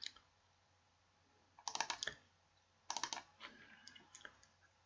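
Faint clicking at a computer: two short bursts of rapid clicks about a second apart, then a few lighter ticks.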